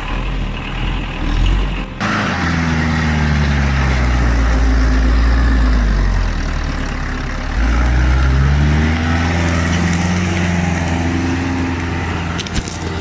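Heavy truck engine revving under load, its pitch rising and falling again and again as it strains for traction in mud. A few sharp clicks near the end.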